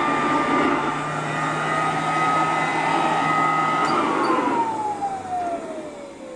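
Antique Cadillac direct-air upright vacuum cleaner running with a steady motor and fan whine, then switched off about four seconds in: the whine falls steadily in pitch and the sound fades as the motor spins down.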